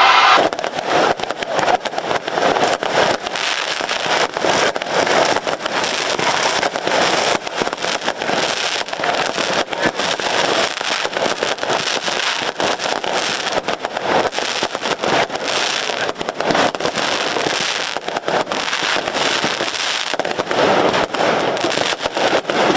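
Dense, rapid crackling and popping of fireworks and firecrackers going off continuously.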